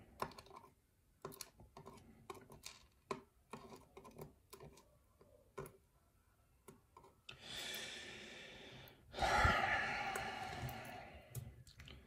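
Steel tweezers clicking and tapping as small lock pins are picked out and set into a plastic pin tray, in scattered light clicks. In the second half come two longer soft breathy noises.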